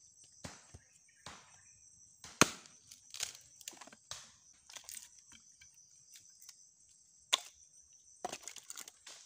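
Small axe chopping and splitting firewood against a log: irregular sharp wooden chops and cracks, the loudest about two and a half seconds in and another past seven seconds, with a quick run of lighter blows near the end.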